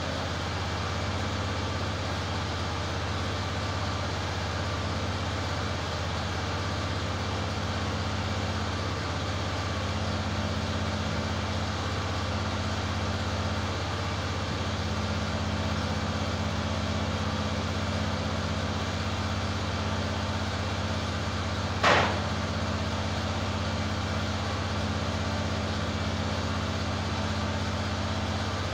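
EZ Boardwalk 40 sawmill's gasoline engine running steadily, with no change under load. A single sharp knock cuts in once, about three-quarters of the way through.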